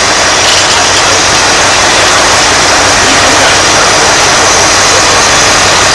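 A mobile crane truck's diesel engine running steadily: a loud, even engine noise with no changes.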